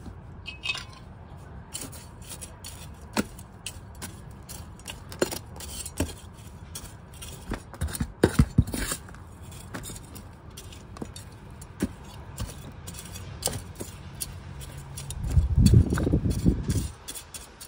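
Metal garden trowel digging and turning compost soil in a plastic storage bin, with scattered scrapes and clicks as the blade hits the plastic sides and bottom. A louder, lower burst of scraping comes near the end.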